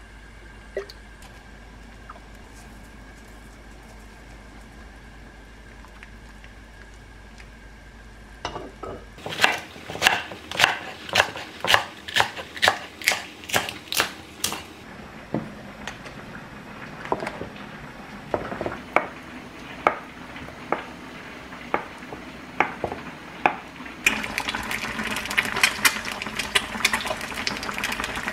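Quiet at first, then about nine seconds in a kitchen knife chopping a green onion into large chunks on a wooden cutting board, about two strokes a second for several seconds. Near the end, a pot of kimchi stew boiling, bubbling and popping.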